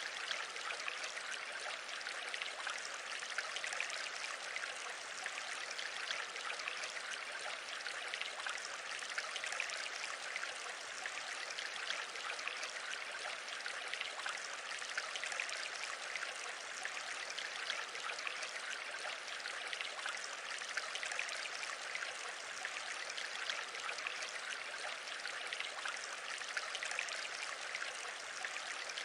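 A steady, even hiss that does not change, with no distinct events in it.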